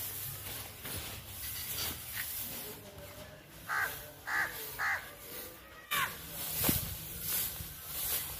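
Crow cawing three times in quick succession, over the rustle of dry wheat straw and chopped green fodder being tossed and mixed by hand in a feeding trough.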